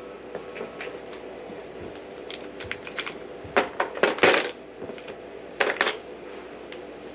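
Fishing tackle and gear being handled and put away: scattered clicks, knocks and clatter of hard objects, the loudest burst about four seconds in, over a steady hum.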